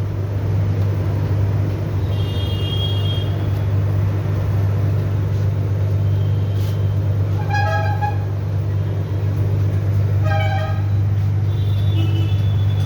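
Road traffic with vehicle horns honking several short times over a steady low engine hum.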